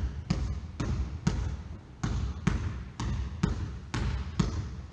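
A basketball being dribbled hard in a ball-handling drill, bouncing in a steady rhythm of about two strong bounces a second with fainter ones between.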